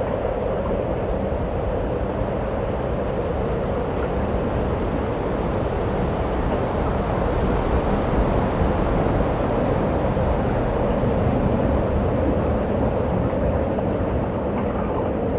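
Steady strong wind of a lake-effect blizzard blowing, with low wind rumble on the microphone; it swells a little in the middle.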